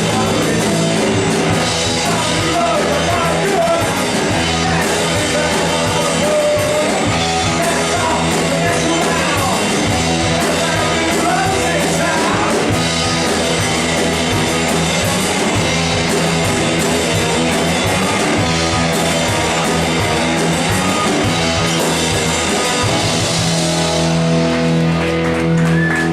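Live punk rock band playing loud, with electric guitars, drums and a lead vocal. About two seconds before the end the band moves onto held, ringing chords.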